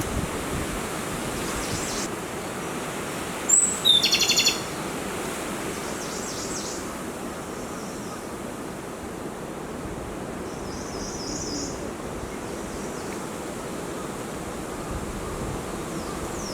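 Japanese robin of the Tane subspecies (Luscinia akahige tanensis) singing one song phrase about three and a half seconds in: a high opening note, then a fast rattling trill. A few fainter high notes follow later, over steady strong wind noise.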